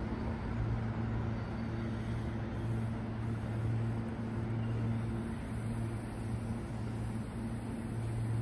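Electric train sound at a station platform: a steady low hum with a few constant tones that swell and ease, as a Meitetsu 2200 series train pulls away.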